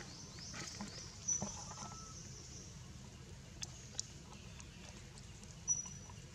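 Two short, high-pitched animal chirps, the first about a second in and the second near the end, over a steady faint outdoor background, with a couple of small clicks in between.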